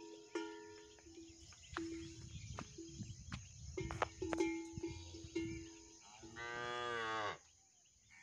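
Theni Malai Maadu cattle mooing: a single drawn-out moo lasting about a second, about six seconds in, the loudest sound here. Before it, background music of held notes with scattered clicks.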